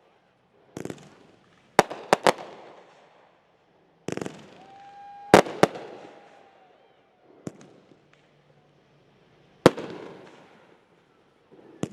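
Consumer fireworks going off: a series of sharp bangs, some in quick clusters of two or three, each followed by a fading echo, the loudest pair about halfway through.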